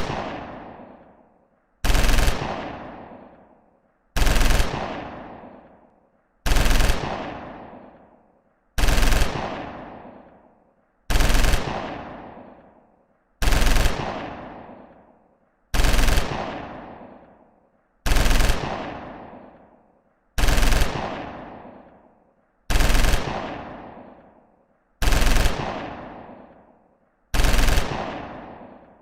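Machine-gun sound effect: a short burst of automatic fire, repeated about a dozen times at even spacing of a little over two seconds, each burst trailing off in a fading echo.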